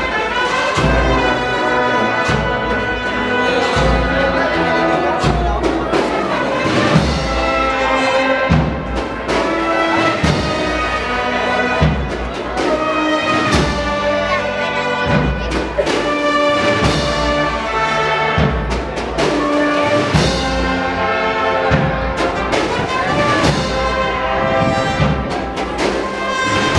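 An agrupación musical, a Spanish processional band of cornets, trumpets, trombones and drums, playing a processional march live in the street, with the brass carrying the melody over a steady drumbeat.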